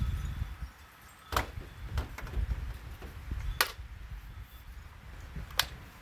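Sharp clicks and clinks, about five spread over the stretch, from a chainsaw's plastic and metal parts and hand tools being handled during disassembly, over a low rumble of handling noise.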